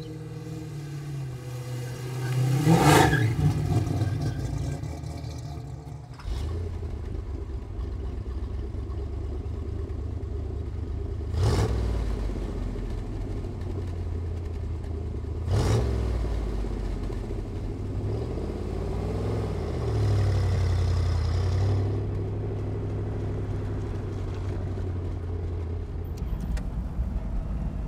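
A car engine revs up once about three seconds in. After a sudden change, the 1967 Chevrolet Corvette's 327 small-block V8 runs steadily, with two sharp knocks and, later, a brief rise and fall in engine pitch.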